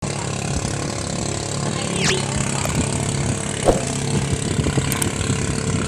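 Small racing boat's engine running steadily as the boat speeds across the water.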